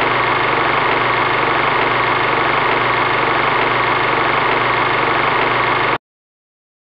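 Intro sound effect: a loud, steady droning noise with no speech or music, cutting off suddenly about six seconds in.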